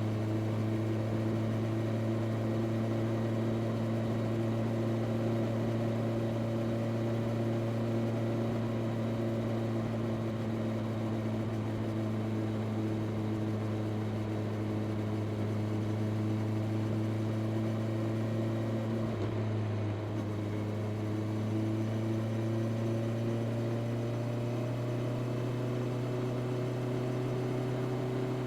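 Honda CB650R's inline-four engine through its stock exhaust, running steadily while riding. The engine note dips briefly about two-thirds through, then climbs slowly in pitch near the end.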